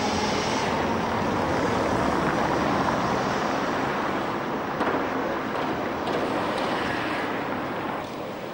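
Tatra T3 tram running along street tracks, a steady rushing rumble with a faint whine that rises in pitch during the first second. The sound drops quieter near the end.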